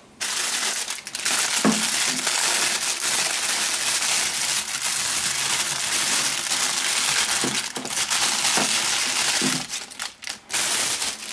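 Clear plastic bag crinkling as hands unwrap a power adapter from it, stopping near the end.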